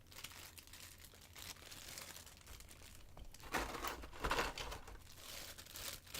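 Hands handling a small plastic statue figure: irregular rustling and crinkling, loudest around four seconds in.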